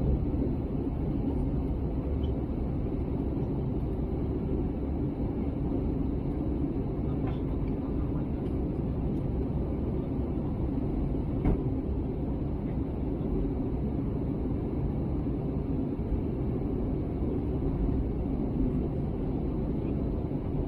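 Steady low rumble of an Airbus A320neo in flight, heard inside the cabin beside the wing: Pratt & Whitney PW1100G geared turbofan engines and airflow over the fuselage. A single faint click sounds about eleven seconds in.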